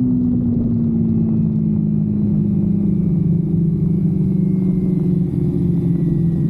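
Kawasaki Versys-X 250's parallel-twin engine running on the road, its note slowly dropping in pitch as the bike eases off the throttle and slows.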